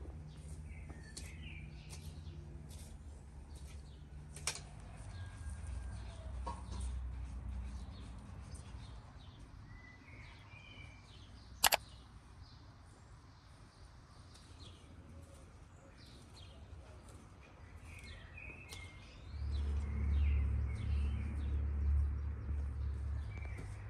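Garden rake and hoe scraping and chopping through loose soil in a vegetable bed, with birds chirping now and then in the background. There is one sharp click about halfway through and a low rumble in the last few seconds.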